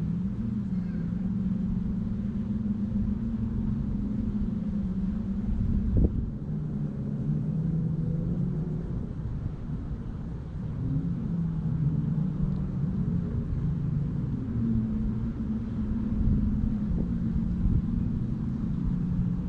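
Steady drone of an engine running, its pitch wavering slowly up and down over a low rumble, with a single short knock about six seconds in.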